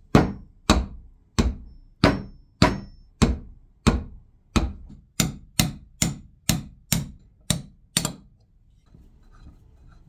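Hammer blows driving a steel sleeve down over the spindle into the cast-iron housing of a Babcock milk-fat tester: about fifteen sharp, ringing metallic strikes, coming quicker in the second half and stopping about two seconds before the end.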